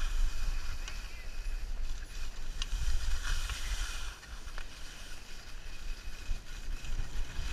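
Wind buffeting the camera microphone with a low rumble, over the hiss of skis sliding on packed snow during a downhill run; the rumble eases off about four seconds in.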